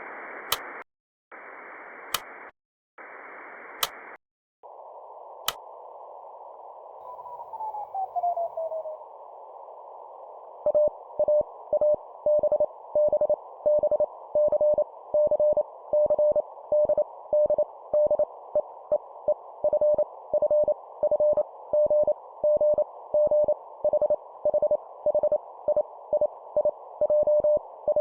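A hiss with a few sharp clicks and a whistle gliding down in pitch, then, from about ten seconds in, a Morse code (CW) tone keyed on and off at 25 words per minute over the hiss.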